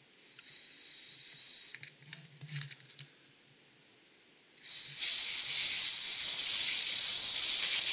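Can of electronics duster (compressed air) spraying into an iPhone 5S charging port to blow out lint and debris. A short, quieter hiss and a few small clicks, then a loud steady hiss that starts about five seconds in.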